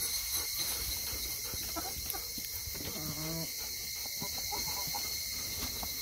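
Chickens making soft low calls, one longer wavering call about three seconds in, over a steady chorus of insects.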